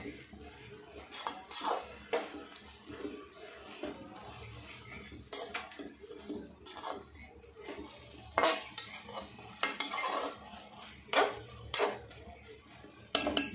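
Metal spoon stirring and scraping through amaranth greens in an aluminium kadhai, mixing in the spices. Irregular scraping strokes with sharp clanks of the spoon on the pan's side, the loudest in the second half.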